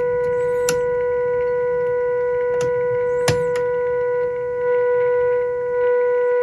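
Steady test tone from the 1946 Olympic 6-601's speaker, with a low hum underneath: the signal generator's modulation tone coming through the set during IF alignment. Its loudness dips and swells a little past the four-second mark as the IF transformer is tuned for peak output, and a few light clicks sound.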